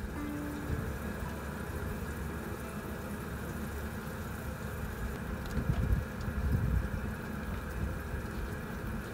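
Light rain falling steadily, an even continuous hiss, with a few low rumbling bumps a little over halfway through.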